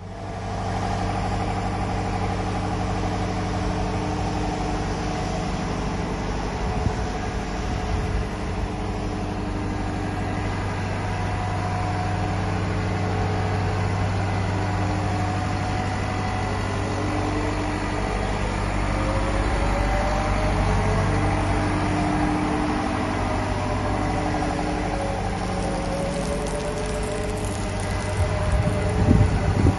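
Liebherr A 904 C Litronic wheeled excavator's diesel engine idling steadily, with a faint wavering whine partway through and a few low bumps near the end.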